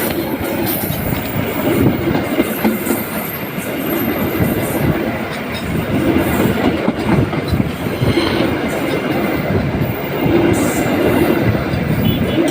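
Argo Sindoro passenger train's coaches passing close by at speed: a steady loud rumble, with the wheels clattering over the rail joints in a repeating clickety-clack.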